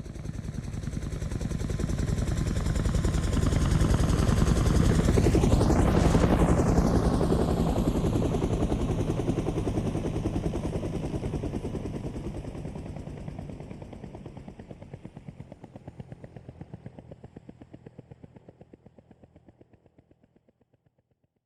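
Helicopter flying overhead: the rapid chop of its rotor blades grows louder, is loudest about six seconds in, then fades slowly away.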